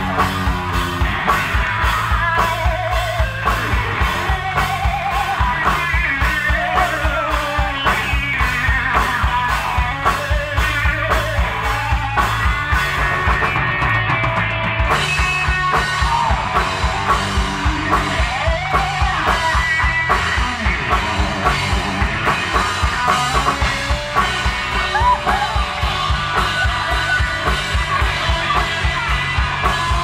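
Live alternative rock band playing loud and full: a steady driving drum-kit beat, electric guitars and bass guitar, with a male singer. The cymbals drop out for a moment about halfway through.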